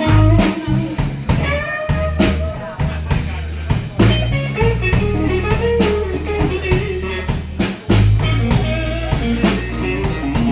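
Blues band playing: a guitar lead with sliding notes over a steady bass line and drum kit.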